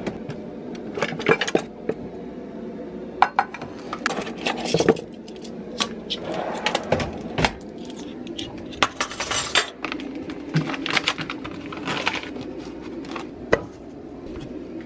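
Kitchen bowls and utensils clinking and clattering as baking ingredients are handled and measured: irregular sharp clicks and knocks, a few louder clanks, over a steady low hum.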